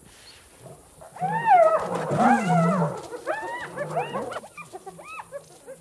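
Wild animal calls: a run of whining calls that rise and fall in pitch, loudest around two seconds in and tailing off into shorter calls near the end, over a low growl.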